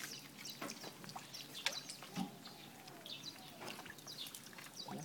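A landing net holding a red drum being lifted out of the water and handled, with water dripping and splashing off the mesh and scattered small clicks and knocks.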